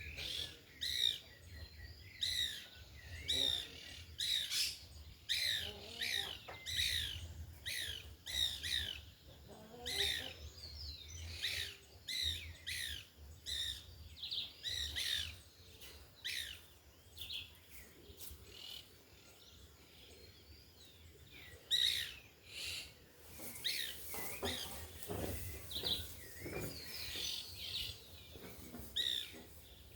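Small birds chirping over and over in quick short calls, over a low wind rumble. From about twenty-three seconds in, a gust of wind noise rises under the calls for a few seconds.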